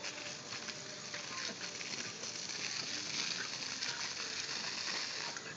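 Garden hose jet spraying in a steady hiss, the water spattering on the grass and against a corgi biting at the stream.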